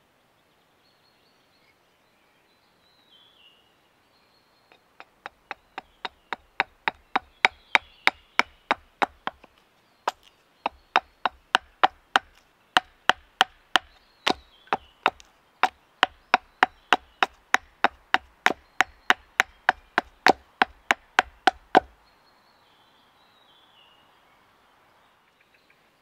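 Quick, light hatchet strokes splitting a thin wooden stick held upright on a chopping block, about three sharp knocks a second. They build up over the first few seconds and pause briefly once before stopping. Birds chirp faintly before and after.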